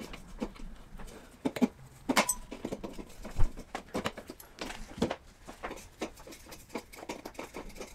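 Hand tools working on a dirt bike's muffler outlet: tin snips clicking and cutting back bent metal, with small knocks and scrapes at an irregular pace, a brief metallic ring about two seconds in and a sharper knock about a second later.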